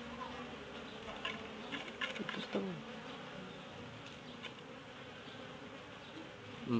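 Asian honeybees (Apis cerana) buzzing steadily in a dense cluster on a comb lifted from the hive. There are a few short clicks and knocks about two seconds in.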